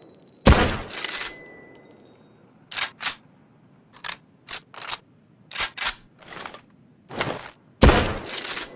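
Two shots from a Mosin-Nagant M91/30 bolt-action rifle about seven seconds apart, each with a trailing echo, and between them a series of sharp metallic clicks and clacks as the bolt is worked to chamber the next round.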